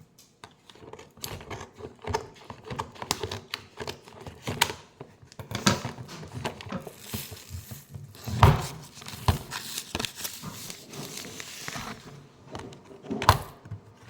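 Packaging and objects being handled at close range: crinkling, irregular clicks and taps, and two louder knocks, about eight and a half seconds in and near the end.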